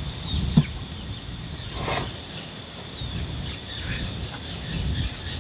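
Outdoor ambience: birds chirping in short falling calls now and then over a steady high-pitched insect drone, with a brief thump about half a second in.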